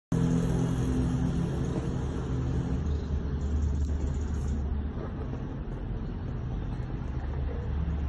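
Steady low rumble of a motor vehicle engine running, with an engine hum on top that fades out about three seconds in.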